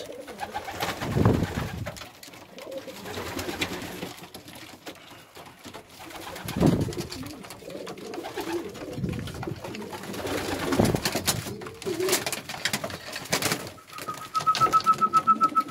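Domestic pigeons cooing in a loft, with sharp clicks and knocks among them. Near the end a fast, high-pitched pulsing trill runs for about two seconds.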